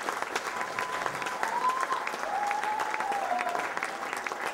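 Audience applauding: steady, dense clapping from many hands, with a faint pitched sound that rises and falls a few times above it.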